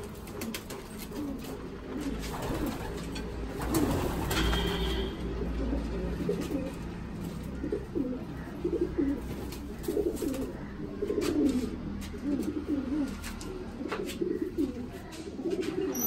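Racing pigeons cooing, one low coo after another.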